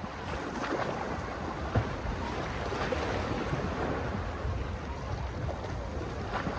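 Sea waves washing ashore in a steady wash, with wind rumbling on the microphone.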